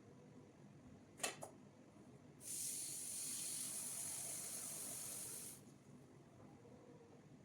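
A sharp click, then a steady hiss lasting about three seconds that stops abruptly.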